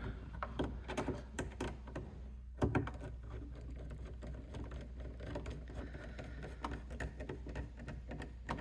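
Irregular small clicks and taps of a hex driver and small bolts working in a plastic body latch as the bolts are snugged down, with one sharper knock about two and a half seconds in.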